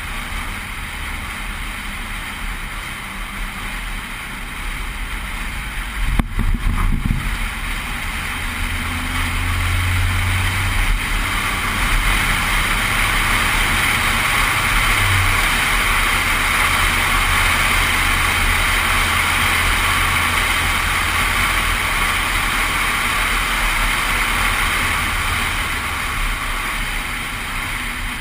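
A Suzuki four-wheel drive driving along hard beach sand: a steady rush of wind over the vehicle-mounted camera with the engine's low drone beneath. There is a short knock about six seconds in, and the noise grows louder from about ten seconds in.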